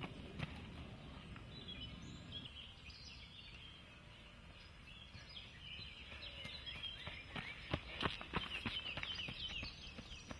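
Woodland birds singing and chirping, with the footsteps of a trail runner going past on a dirt forest path. The footsteps are loudest about eight seconds in.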